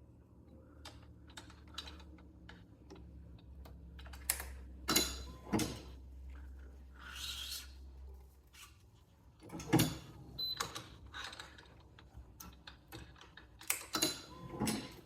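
Badminton racquet stringing work: an irregular run of sharp clicks and several louder knocks from the clamps, tools and string against the frame, over a low hum that stops about eight and a half seconds in.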